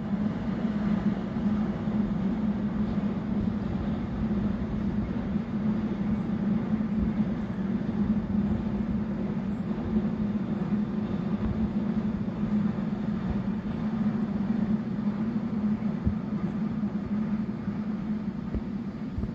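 Container freight train hauled by two E494 electric locomotives running across a viaduct: a steady rumble of wagons on the rails with a constant low hum.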